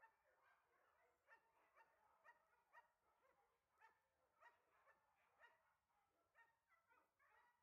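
Faint dog barking, repeated about twice a second without a break.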